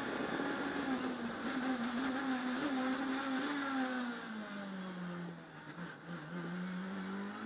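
Ford Fiesta S2000 rally car's 2.0-litre four-cylinder engine heard from inside the cockpit, holding a steady high note and then dropping to a lower, steady note about four and a half seconds in as the car slows for a tight chicane.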